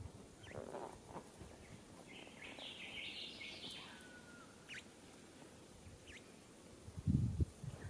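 Bird calls, plausibly a rufous whistler at its nest: a short scratchy chattering burst a couple of seconds in, then a few thin falling whistles and sharp chips. Near the end comes a brief, loud, low thump.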